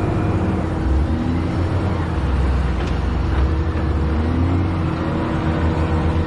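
Heavy construction machine's engine running steadily: a constant low drone with a steady hum above it.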